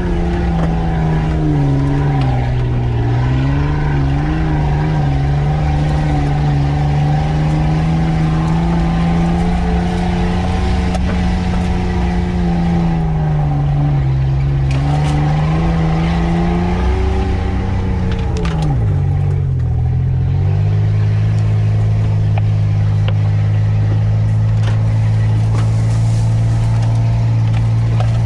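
Off-road 4x4's engine pulling along a rough dirt track. Its revs rise and dip repeatedly with the throttle, then drop about two-thirds of the way through to a steady, lower note. Light rattling and brush noise run over it.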